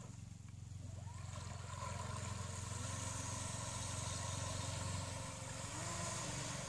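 Radio-controlled model motor yacht's motor running at speed, the sound growing louder about a second and a half in as the boat comes close.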